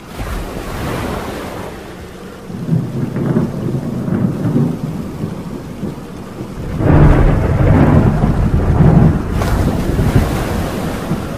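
Thunderstorm: rain with rolling thunder. One roll comes at the start, another about two and a half seconds in, and the loudest and longest from about seven to ten seconds in.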